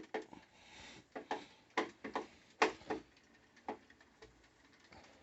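NordicTrack 990 Pro exercise machine in motion, knocking: a run of short knocks and clicks at uneven spacing, about two a second, fewer near the end. The cause is unknown; nothing on the machine is loose or out of alignment.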